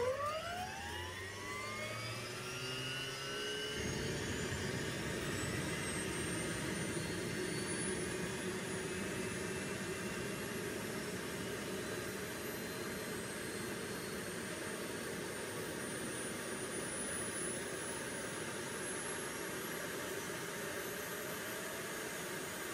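Pratt & Whitney PW206B2 turboshaft (the #1 engine of an Airbus EC135 helicopter) spooling up on its starter: a whine that rises steeply at first and then keeps climbing slowly. A steady low rumble joins about four seconds in.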